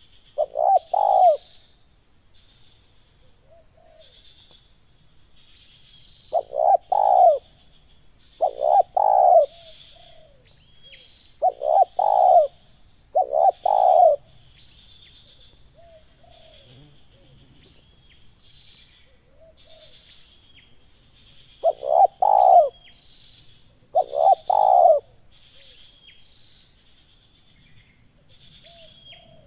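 Spotted dove cooing: seven short phrases of two or three deep coos each, spaced by gaps of a few seconds, with a long pause in the middle. Faint high chirping of insects or small birds runs underneath.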